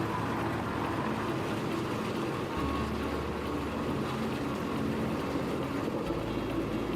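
Heavy wood-processing machine running steadily: a dense mechanical drone with a low hum that shifts about a third of the way in and again near the end.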